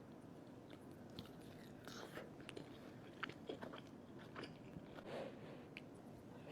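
Faint close-miked chewing and mouth sounds of someone eating egg foo young: scattered soft clicks and smacks.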